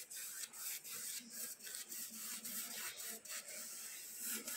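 A hand rubbing and scratching over a wall patch where the paint was stripped back to the render and coated with Bianco bonding resin: a faint run of scratchy strokes, about three or four a second.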